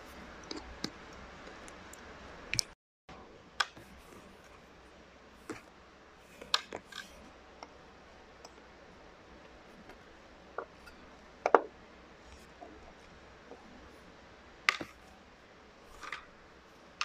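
Scattered sharp clicks and taps of a small screwdriver working the metal screws of an épée body-cord plug, with small screws and parts dropped into a plastic tray. The loudest click comes a little past the middle.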